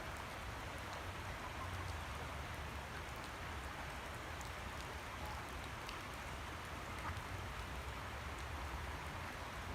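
Steady rain falling on a creek's surface, with scattered small drop ticks over an even hiss.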